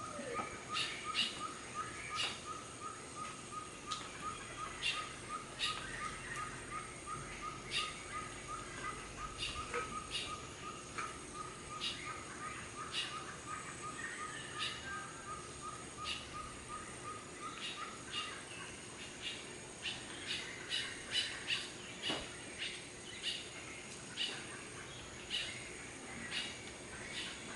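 Costa Rican jungle ambience: birds calling. One repeats a fast, even series of notes that stops about two-thirds of the way through, while sharp high chirps come and go throughout over a faint steady high drone.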